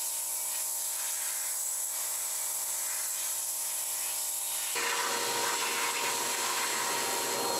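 Shop vacuum running steadily, sucking loosened dust and grit out of a crack in a concrete foundation wall. Its motor whine changes abruptly about five seconds in.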